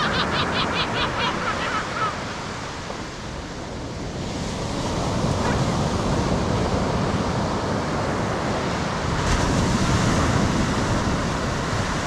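Surf breaking on a sandy beach with wind on the microphone, the wash swelling louder about four seconds in and again about nine seconds in. Gulls call rapidly over the surf for the first second or two.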